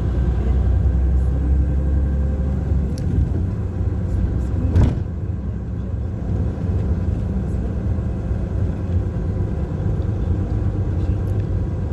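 Vehicle driving, heard from inside: a steady low rumble of engine and road, with one sharp thump a little under five seconds in.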